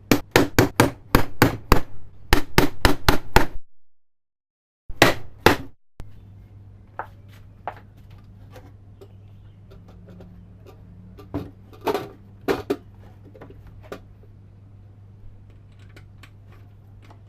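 Rapid sharp knocks, about four a second, for the first three and a half seconds, then two more loud knocks. After that there is a steady low hum with a few scattered light clicks and taps.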